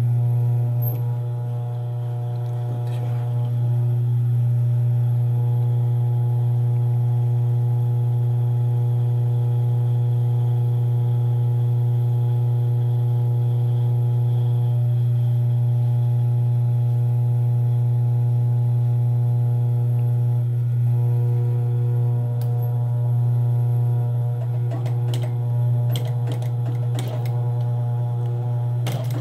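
Sewing machine motor running with a steady, loud low hum while the fabric is positioned, with a few sharp clicks in the last few seconds.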